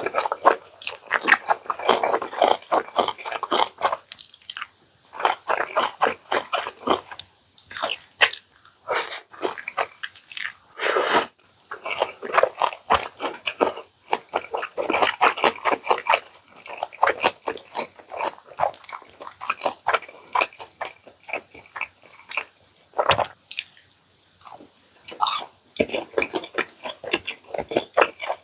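A person eating, close-miked: biting and chewing in runs of quick clicks with short pauses between mouthfuls.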